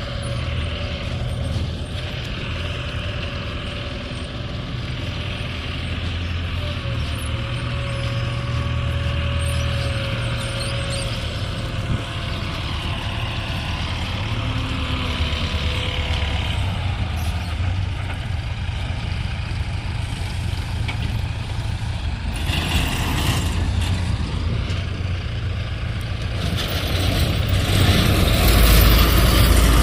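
A heavy engine running steadily with a low hum. In the last few seconds it grows louder, with a rushing noise added.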